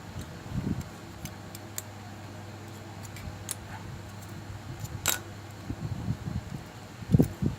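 Homemade spot welder built from a microwave-oven transformer, giving a steady low hum with a series of sharp clicks and snaps, the loudest about five seconds in, among low handling knocks near the start and end.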